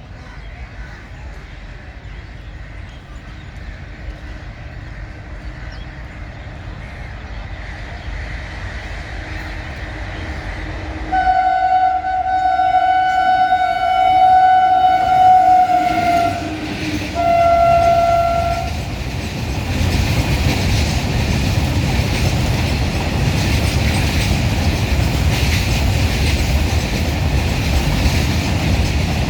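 Indian Railways WAG-7 electric locomotive hauling a freight train. Its rumble grows as it approaches, then it gives a long horn blast about eleven seconds in and a second, shorter one soon after. From about the nineteenth second comes the loud rumble and clickety-clack of the wagons passing.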